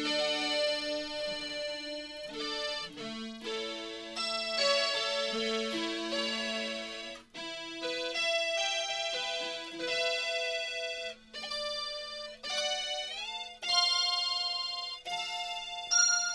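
Guitar played through a Boss SY-200 synthesizer pedal on its pad variation 14, a bright bell-like synth pad. It sounds a series of sustained notes and chords that change every second or two, with short breaks between phrases.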